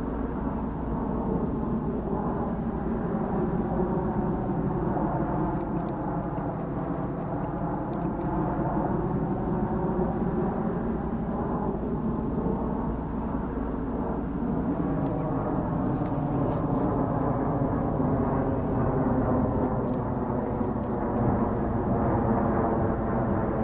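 Boeing 737-700 airliner's jet engines heard passing overhead: a steady, deep engine noise with faint tones that slowly glide up and down through it.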